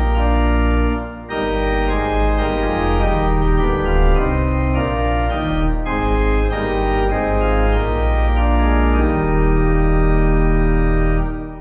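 Organ playing a hymn tune in sustained chords over a deep bass line, with a short break between phrases about a second in and the verse's last chord fading out at the very end.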